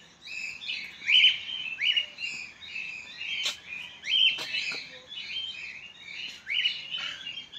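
Many birds chirping and calling together, with one sharp call repeated every second or two over the steady chatter, and two brief sharp clicks near the middle.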